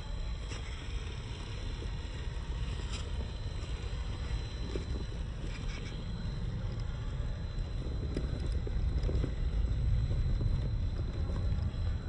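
WPL C24 RC crawler's 370 brushed motor and single-speed gearbox running as the truck crawls over dirt and roots, heard as a steady low rumble with scattered small clicks. It gets louder about eight seconds in as the truck climbs.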